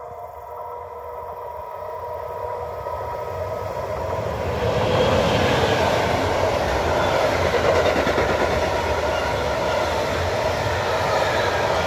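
Intermodal freight train of pocket wagons loaded with lorry trailers approaching and passing close by. It grows steadily louder over the first four or five seconds, then holds a steady rumble of wheels rolling over the rails as the wagons go past.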